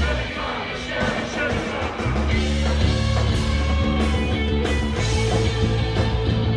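Live indie rock band playing through a festival PA: electric guitar, bass, drums and vocals. The low end thins out briefly, then the full band comes back in about two seconds in.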